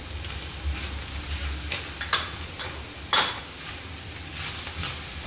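Minced meat frying in a nonstick pan, sizzling lightly as a silicone spatula stirs and scrapes it, with several sharp clicks and taps against the pan, the loudest about three seconds in.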